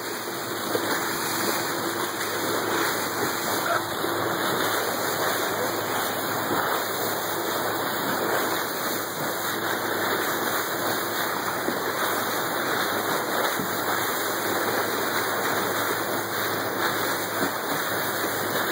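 Steady rushing of sea water along a moving boat's hull, an even hiss that does not let up.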